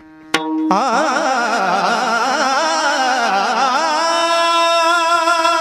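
Devotional bhajan music: a sharp strike, then a wavering, ornamented melody that settles on a long held note about four seconds in.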